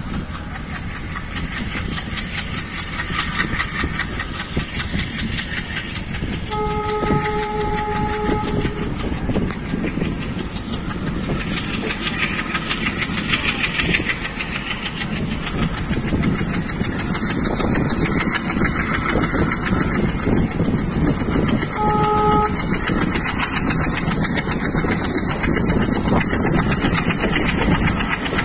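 ALCO diesel locomotive engine chugging hard under load, pouring out heavy exhaust smoke, heard from a window of a coach it is hauling along with wheel and rail noise, growing louder. The train horn sounds twice: a long blast of about two seconds around 7 seconds in, and a short toot around 22 seconds in.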